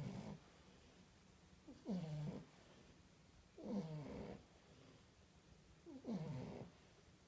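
French bulldog puppies snoring in their sleep, about one snore every two seconds, four in all. Each snore is a short, whistly rasp that slides down in pitch.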